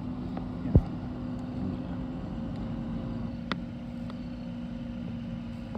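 A motor running steadily with a constant low hum, broken by one loud thump about a second in and a short sharp click past halfway.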